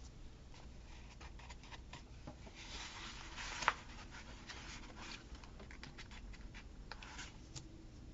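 Paper planner sticker being peeled off its sheet and pressed onto the planner page: faint scratchy paper rustles and small clicks, with one sharp tick a little over three and a half seconds in.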